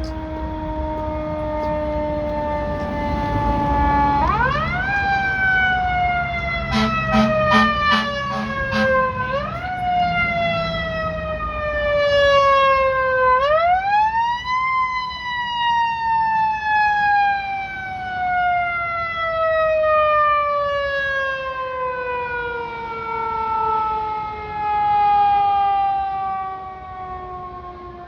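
Fire truck siren wailing, jumping up in pitch three times and falling slowly in between, with a long slow fall over the second half. Short blasts of the truck's air horn, about six in a row, sound over it near the middle, with the truck's engine rumbling underneath.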